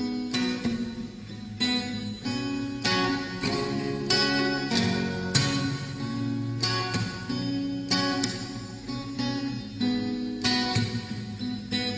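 Solo acoustic guitar playing strummed chords with sharp percussive accents, the intro of a backing track with no vocal yet.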